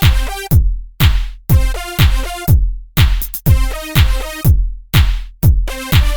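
Electronic background music: a drum-machine kick about twice a second under bright synth chords, with a few short breaks in the beat.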